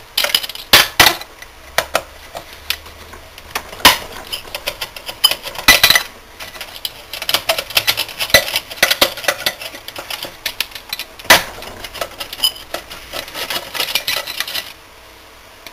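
Steel screwdriver clicking, scraping and clinking irregularly against screws and terminals inside a sheet-metal soft-starter chassis, used in place of an Allen wrench to undo hex screws. The clatter stops shortly before the end.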